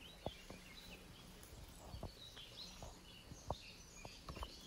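Quiet woodland ambience: faint birds chirping, with a few scattered soft clicks.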